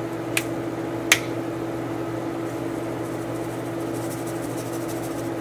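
Two sharp clicks within the first second or so as the cap of a plastic seasoning shaker is snapped open, then a faint, fine rattle of seasoning being shaken out, over a steady low hum.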